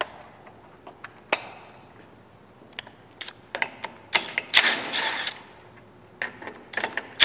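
Scattered sharp clicks and knocks with a short run of rattling, scraping sounds a little past the middle: hand work on a small engine's ignition coil, unplugging its connector and unbolting it.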